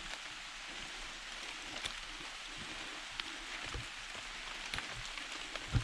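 Rain falling steadily, a soft hiss with scattered drops tapping. A few dull thumps come through it, the loudest near the end.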